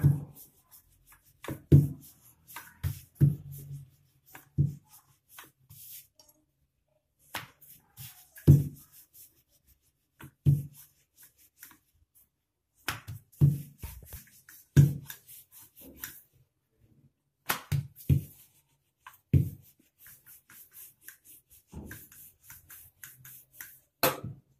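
Wooden rolling pin rolling out paratha dough on a stone rolling board, with short low knocks every second or two as the pin and board bump. There are a couple of brief pauses between strokes.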